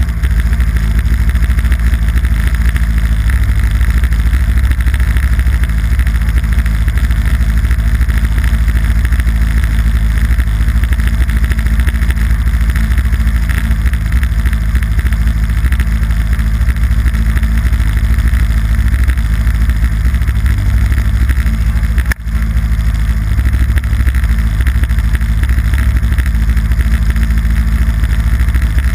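Yamaha Apex snowmobile's four-stroke four-cylinder engine running at a steady cruise, with a steady hiss over it. The sound dips briefly about three-quarters of the way through.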